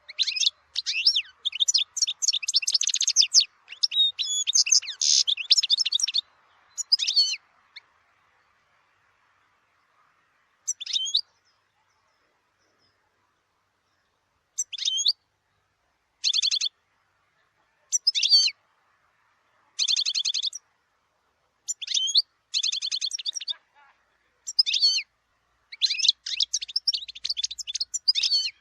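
European goldfinch singing: a dense run of rapid, high twittering and trilling phrases for about the first seven seconds, then after a pause, shorter twittering phrases every second or two.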